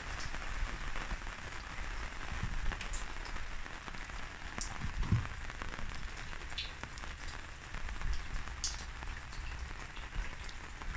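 Steady rain falling, with scattered sharp hits of single drops over a low rumble.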